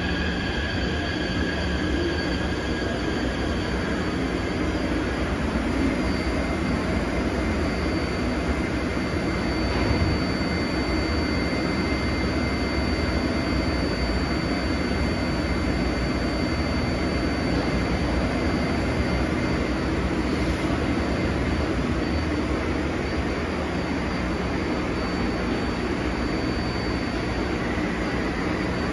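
Taipei Metro C371 electric train coming to a stop at an underground platform and then standing with its equipment running. Pitched motor tones fade away in the first few seconds, leaving a steady hum and rush with a faint high steady tone.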